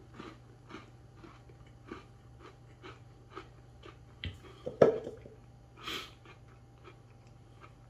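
A person chewing a gingerbread latte biscuit close to the microphone: a steady run of short clicking chews, about two a second, with a louder knock about five seconds in.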